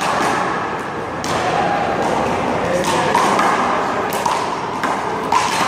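A one-wall handball rally: a small rubber ball slapped by hand and pinging off the wall, about five sharp smacks at uneven intervals, with voices around.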